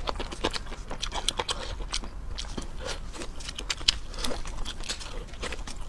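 Close-miked eating: chewing with many quick, irregular crisp clicks and cracks as crayfish are broken apart and eaten.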